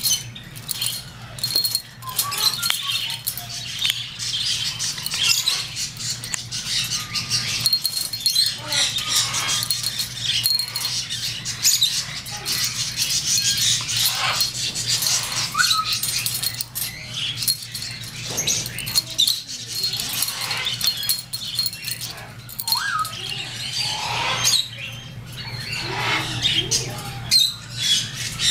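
African grey parrot playing with a toy on his cage, making irregular clicks, knocks and rattles of the toy against the wire. A few short chirp-like calls from the bird come in around the middle.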